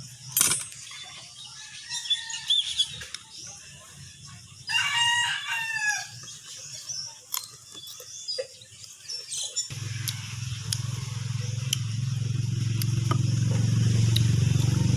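A rooster crowing, one long call about five seconds in, with a fainter call a couple of seconds earlier. From about ten seconds an engine hum grows steadily louder as a vehicle approaches.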